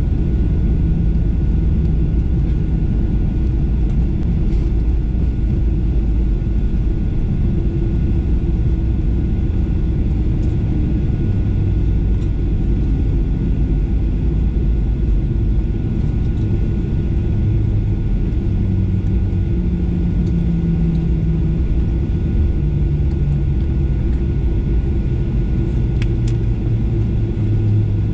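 Cabin noise of a Boeing 737-800 taxiing after landing: a steady low rumble from its CFM56 engines at idle and wheels on the pavement, with a thin steady whine above it.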